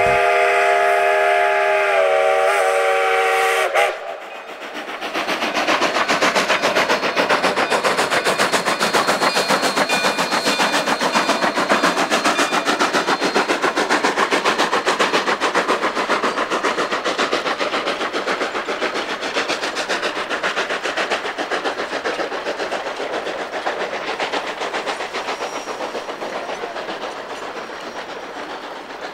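A narrow-gauge steam locomotive's whistle sounds a held chord of several notes for about four seconds and cuts off. The train's cars then roll past with a rapid clickety-clack of wheels on the rails, slowly fading as the train moves away.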